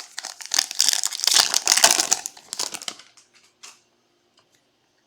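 A trading-card pack wrapper crinkling and tearing as it is opened, for about three seconds, then a few faint ticks.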